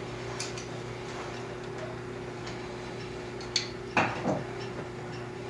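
Steady low hum, with a few faint clicks and a brief louder sound about four seconds in.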